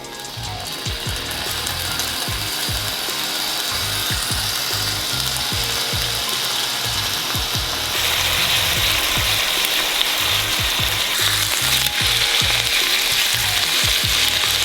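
Trout fillets sizzling as they fry in a hot pan, a loud steady hiss that gets louder about eight seconds in. Background music with a low beat plays underneath.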